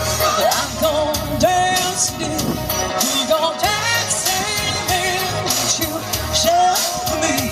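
Pop-rock song: a singing voice over a band, with bass and a steady drum beat.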